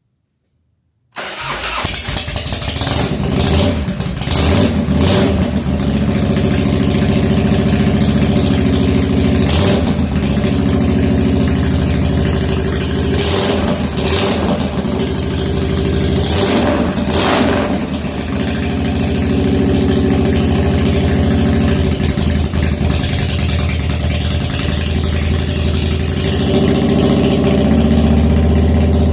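The 1997 Harley-Davidson FXDWG's Evolution V-twin fires about a second in on a cold first start after an S&S carburetor repair. It keeps running with several brief throttle blips and is not yet idling well.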